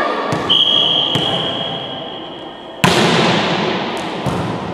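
A referee's whistle blows one long steady note for about two seconds. Just after it stops, a volleyball is served with a loud, sharp slap that echoes through the sports hall, and a softer hit on the ball follows about a second and a half later.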